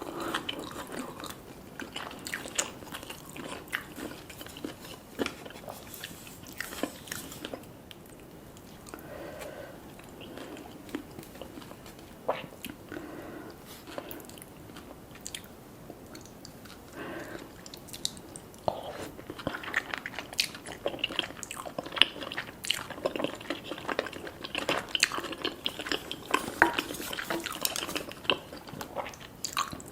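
Close-miked eating sounds: biting and chewing food with many short, sharp mouth clicks. Sparser in the middle, then busier in the second half.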